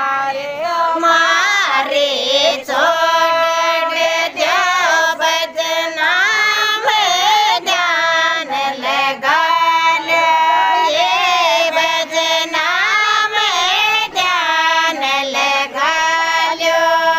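Women singing a Rajasthani Shekhawati folk song (lokgeet) in high voices, a continuous melody with only brief breaks for breath.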